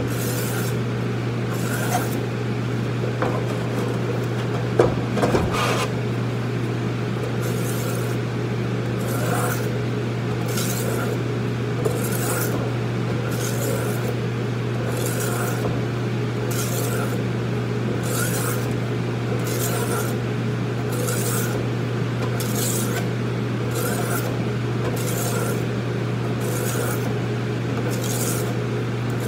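Knife blade being stroked back and forth on a multi-stone oil sharpening stone: a short rasping scrape about once a second, over a steady low hum. There are a few knocks about five seconds in.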